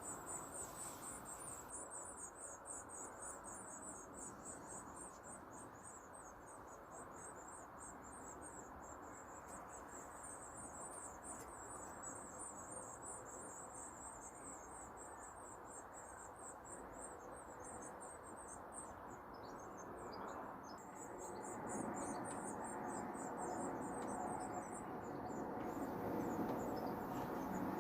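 Small songbirds, blue tits, giving long runs of fast, very high-pitched chirps with short breaks, over a steady outdoor background hiss.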